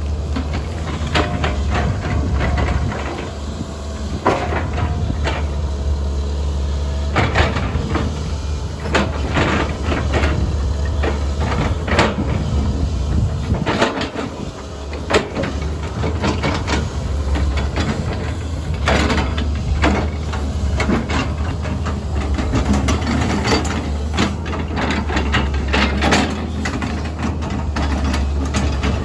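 SANY SY205C excavator's diesel engine running steadily under working load, with frequent short clanks and knocks from the machine working.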